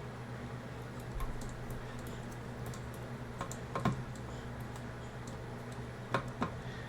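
Scattered small clicks and light taps of a tiny screw and screwdriver being worked into a mini PC's case while fastening its fan. The loudest cluster comes around four seconds in and two sharp clicks come near the end, over a steady low hum.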